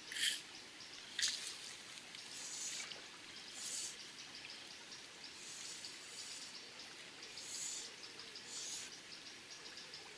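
Fly line being drawn in by hand through the rod rings, in short hissing pulls about every second or two; the two sharpest come near the start. Under them runs a steady, rapid high-pitched ticking.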